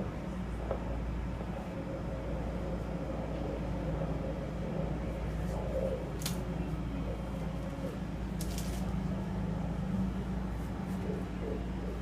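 Fetal heartbeat through a fetal Doppler monitor's speaker: a steady whooshing, static-laden hum. Two brief sharp clicks come in the middle.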